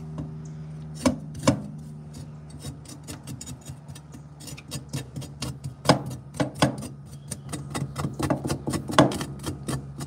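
Chinese cleaver slicing fresh ginger on a wooden cutting board: an irregular run of quick knocks, several a second, as the blade hits the board, with a few louder chops among them.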